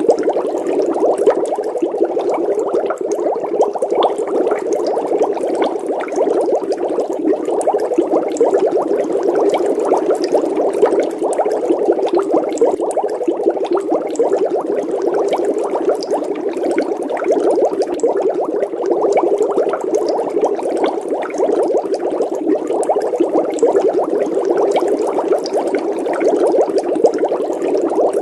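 Water bubbling in a steady, dense stream of small pops, like a vigorous boil or air bubbling through water.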